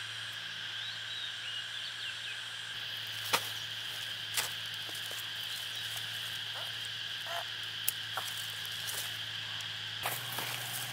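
Steady high drone of insects or frogs chirping, with a few sharp clicks about three, four and eight seconds in.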